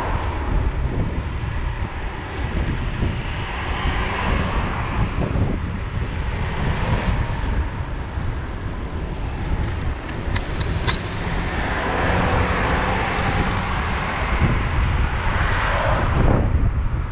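Road vehicles passing several times, over a steady wind rumble on the microphone of a moving bicycle.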